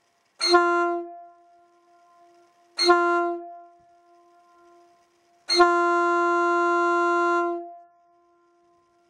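Airchime P2 single-chime locomotive horn, mounted on a car, sounding two short blasts and then one long blast of about two seconds, all on one steady pitch, each dying away in an echo.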